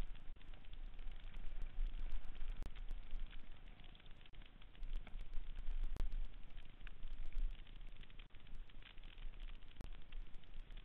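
Mountain bike riding fast down rough dirt singletrack: wind buffeting the camera's microphone as a low rumble, tyres rolling on dirt, and a constant stream of clicks and rattles from the bike over roots, with a few harder knocks.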